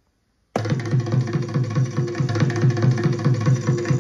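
A looped percussion sample triggered from an Alesis SamplePad Pro's pad, playing through a speaker. It starts suddenly about half a second in, with a fast, steady drum beat over a held tone.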